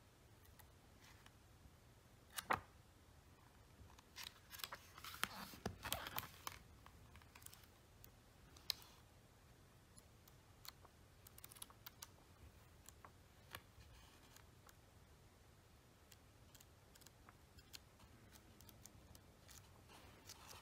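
Faint page turning in a thick hardcover book: scattered paper flicks and soft rustles, with a sharper tap about two and a half seconds in and a denser stretch of rustling from about four to seven seconds in.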